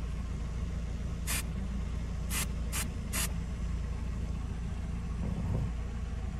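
Car engine idling with a steady low rumble, over which a spray bottle gives four short spritzes, one about a second in and three close together around two and a half to three seconds in.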